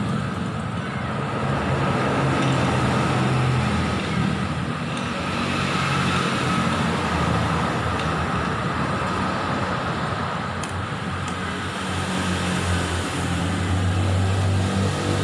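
Yamaha R25's parallel-twin engine running steadily.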